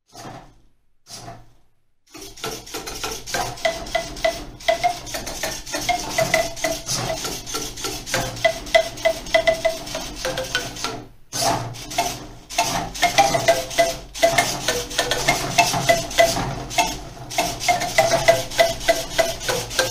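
3D-printed mini marimba struck rapidly by a robot's float-tipped mallets, playing a quick run of short pitched notes over a constant noisy mechanical clatter from the robot's arms. The playing starts about two seconds in and pauses briefly twice in the second half.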